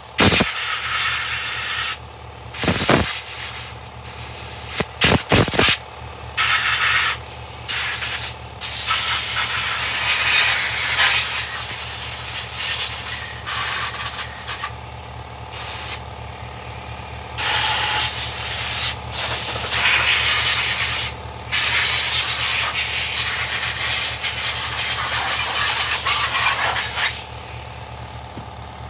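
Compressed-air blow gun hissing in repeated bursts, a few short ones and then longer blasts lasting several seconds, over a faint steady low hum.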